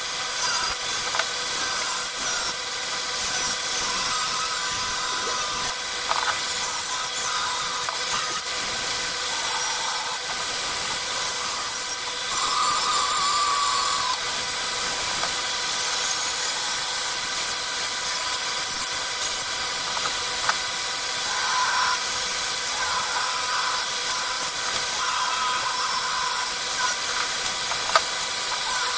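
Power grinder running continuously on cast bronze, its motor holding a steady whine under a loud hiss of metal being cut and ground off. This is the heavy chasing of a fresh casting: the risers are cut away and the rough metal is ground down.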